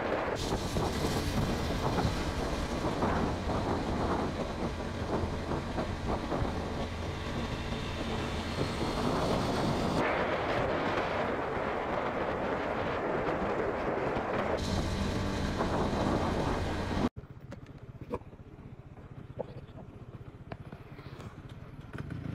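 A Honda CB150R motorcycle ridden on the road: steady wind and road rush over the low hum of its single-cylinder engine. Near the end the sound cuts off suddenly to a much quieter stretch with a few faint ticks.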